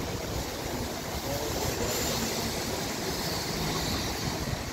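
Steady background noise: a low rumble with a hiss over it, holding level throughout.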